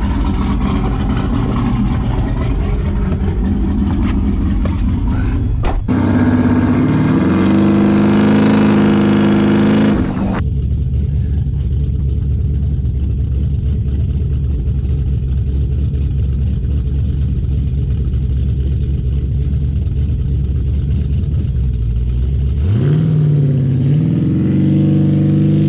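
Twin-turbo LSX V8 of a Cadillac Escalade running on the road. After a sharp click about six seconds in, the revs climb for about four seconds and drop off suddenly, run steadily for a while, then climb again near the end.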